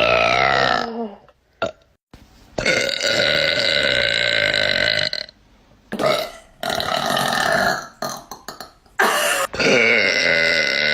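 A person burping over and over: a long drawn-out belch of about two and a half seconds, then a few shorter ones, and another long one starting near the end.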